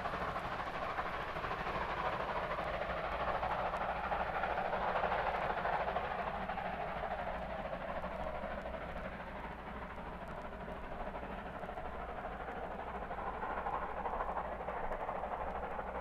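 Steam locomotive and its train running, a steady noisy din that swells to its loudest about five seconds in and then eases off, as recorded on a 1970s vinyl LP.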